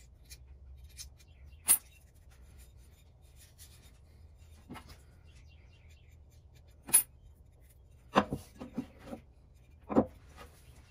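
Blue masking tape being peeled and picked off a small metal block plane body, with two sharp snaps a few seconds apart. Near the end, a quick run of light knocks and a clunk as the plane body is set down on the wooden bench.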